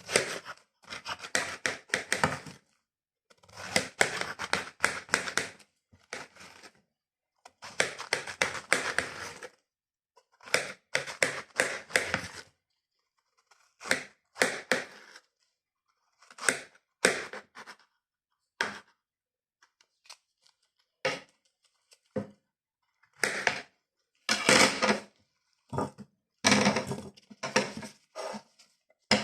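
Knife cutting through watermelon: crisp crunching and crackling strokes in bursts of a second or two, with short pauses between them.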